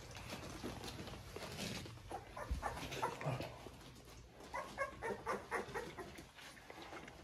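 Newborn XL American Bully puppies squeaking and whimpering in short, high cries, a run of them about a third of the way in and another cluster past the middle.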